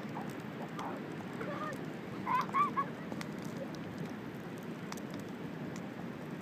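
Faint crackles from a wood fire over a steady low rush. A few short high calls that rise and fall come through, one about a second in and a louder cluster around two and a half seconds in.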